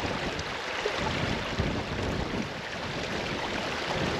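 Wind gusting across the microphone, a steady rushing with uneven low buffeting.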